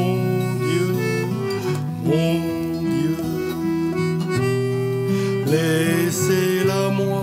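Cécilium, a free-reed instrument whose bellows are worked by a bow-like handle, playing held, organ-like chords and bass notes that change every second or so, with a steel-string acoustic guitar accompanying.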